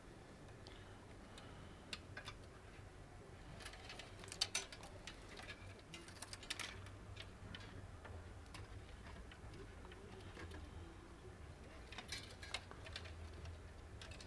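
Scattered light clicks and rattles of PC fan cables and their plastic connectors being handled and pulled apart, in small clusters, over a faint steady low hum.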